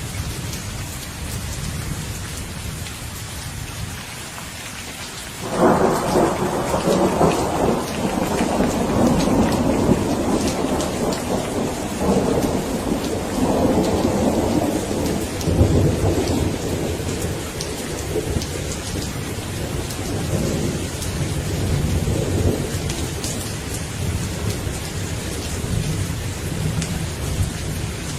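Steady rain falling, with a thunderclap breaking in suddenly about five seconds in and rolling on in several swells of rumbling for some fifteen seconds before fading back under the rain.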